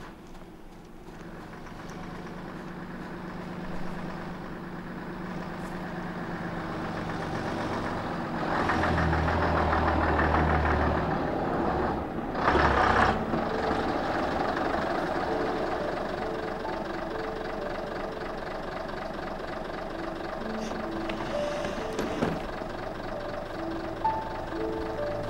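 Bus engine running as the bus pulls up, swelling loudest in the middle, with a short loud hiss about thirteen seconds in, then running steadily at a standstill.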